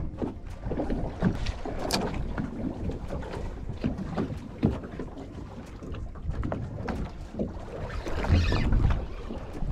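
Wind buffeting the microphone and small waves lapping against a boat's hull, with scattered clicks and knocks. A louder rush of wind and water comes about eight seconds in.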